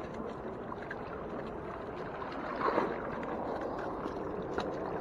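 Steady rushing outdoor background noise with a few faint clicks of handling, and a short louder sound a little past halfway.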